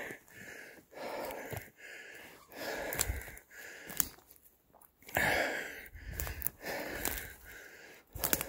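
Heavy breathing of a winded man walking, about one breath a second, with light crackles of leaves and twigs underfoot.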